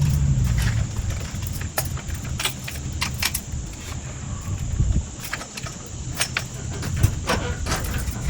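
Irregular light clicks and clinks of small hard objects, a dozen or so, over a steady low rumble.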